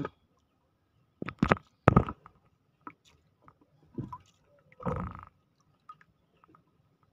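Knocks and bumps of gear against the hull of a small wooden boat as a fisherman shifts and handles his hand-line spool: three sharp, loud knocks between about one and two seconds in, then a short rustle about five seconds in, with a few light clicks between.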